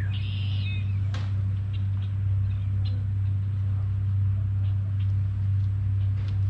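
A steady low machine hum that does not change, with a bird giving a short chirping call near the start and a few faint chirps later.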